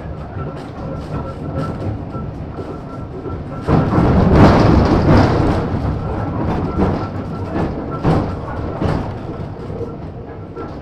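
1915 Ringhoffer two-axle tram running, heard from inside the wooden car body, with the wheels knocking over rail joints. A louder rumble swells about four seconds in and lasts a couple of seconds, then single knocks come every second or so.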